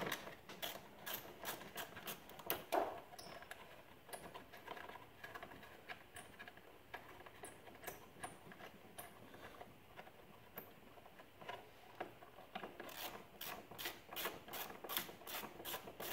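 Faint clicking of a hand socket ratchet working a radiator-mounting bolt loose, sparse at first and coming in quick runs of several clicks a second near the end, with one louder knock about three seconds in.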